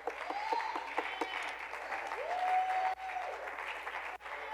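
A church congregation applauding, with a few held calls or tones over the clapping.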